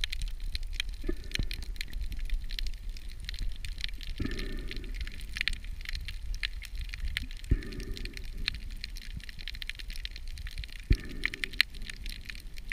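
Underwater reef sound heard through a camera housing: a dense, steady crackle typical of snapping shrimp over a low rumble. A short muffled swell comes four times, about every three seconds.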